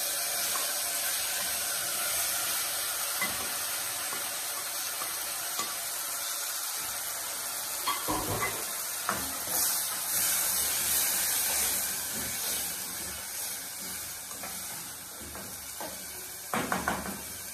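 Diced tomatoes sizzling in hot oil with onions in a metal pot, a steady hiss. A few knocks come about midway, and near the end a wooden spoon stirs and clatters against the pot.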